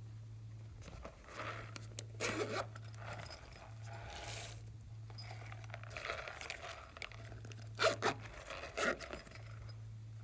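Pink silicone push-pop fidget toy being pressed and handled, giving irregular crinkly pops and rubbing scrapes, loudest a little before the end. A steady low electrical hum lies under it.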